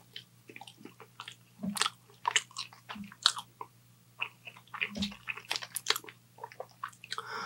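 A man biting and chewing fried food: irregular wet mouth clicks and crunches, with three soft low thumps spread through the chewing.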